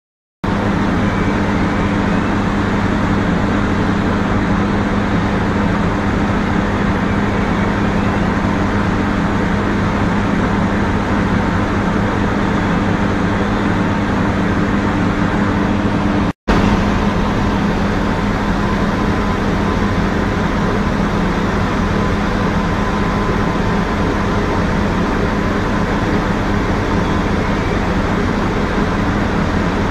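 Steady drone of a horizontal vacuum belt filter plant running, with a low hum under a loud, even machinery noise. It breaks off for an instant about halfway through.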